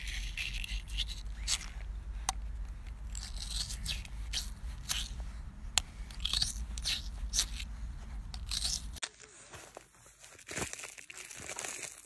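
Stainless-steel melon-baller scoop scraping and crunching into a crisp slice of green vegetable: a quick run of short, crisp scrapes, several a second. About nine seconds in this gives way to quieter, faint crackling as a spiky chestnut burr is pressed open underfoot.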